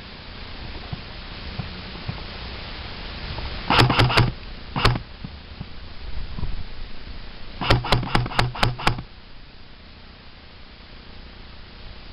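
Airsoft electric gun firing: a quick burst of three shots about four seconds in, a single shot just after, then a longer burst of about six shots near eight seconds.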